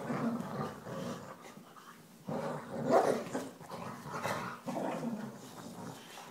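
Two boxer dogs play-fighting over a plush toy, with a dog growling in irregular bursts, loudest about halfway through.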